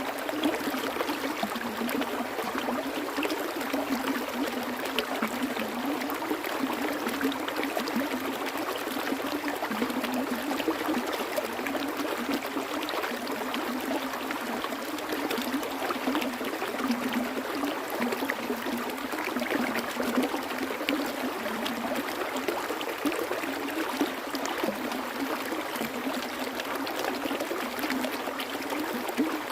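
Water flowing steadily, a continuous babbling rush of a stream with many small splashes and trickles.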